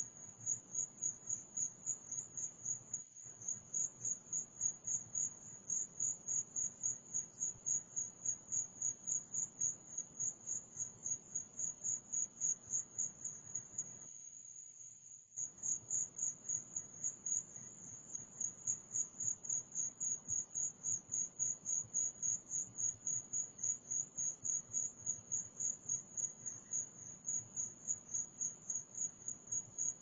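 Crickets chirping at night in a steady, high-pitched pulse, about three chirps a second. The sound cuts out briefly about fourteen seconds in.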